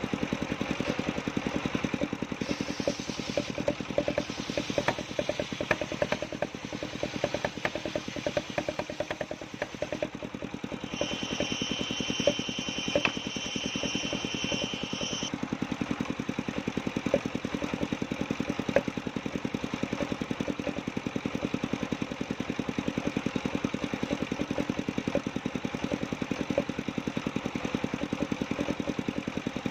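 Engine of a portable circular sawmill running steadily with a fast, even firing beat. A high steady whine joins for about four seconds near the middle.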